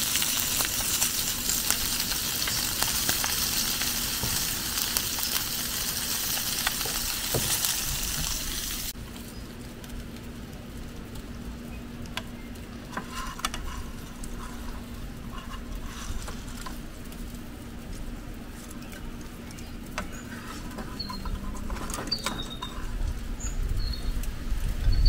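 Carp sizzling and crackling as it cooks in hot fat, a dense spitting hiss that cuts off abruptly about nine seconds in. The rest is quieter, with scattered light clicks and a few faint high chirps.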